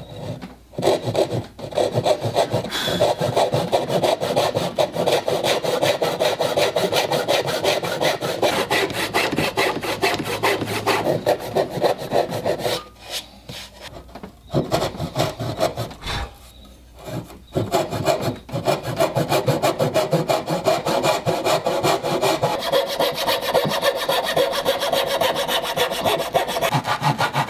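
Hand backsaw cutting dovetails in a softwood 2x6: a steady run of quick rasping saw strokes through the wood, stopping for a few short pauses about halfway through.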